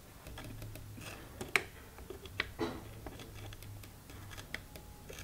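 Needle-nose pliers and a metal probe clicking and tapping against a capacitor's wire lead and the metal turret as the lead is bent and wrapped around it: a few faint, irregular small clicks, the sharpest about a second and a half in.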